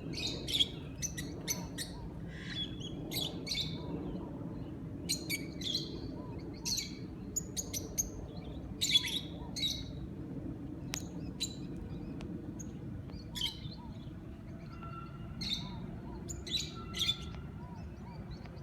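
Green parrots calling from a date palm: short, sharp, high-pitched chirps in quick clusters, scattered throughout, over a steady low background hum.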